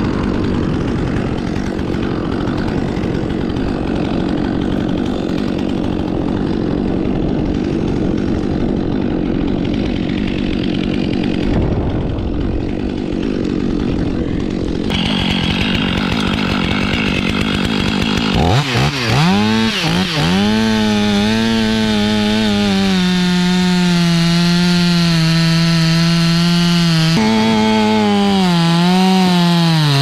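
Stihl chainsaw cutting through a pine trunk at full throttle. The engine revs up sharply a bit past halfway and holds high, its pitch dipping again and again as the chain bites into the wood. Before that there is a steadier, lower engine hum.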